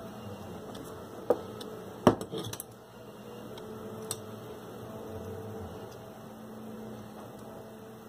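Handling of metal tools and a torch on a workbench: a few sharp clicks and knocks, the loudest about two seconds in, over a faint steady hum.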